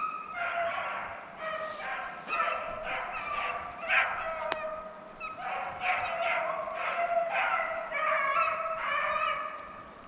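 Rabbit-hunting hounds baying on a rabbit's trail: several dogs giving tongue, their drawn-out cries overlapping without a break.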